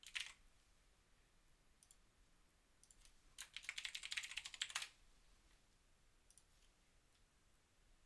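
Computer keyboard typing, fairly faint: a few keystrokes at the start, then a quick run of rapid keystrokes in the middle lasting about a second and a half, with a couple of lone clicks between.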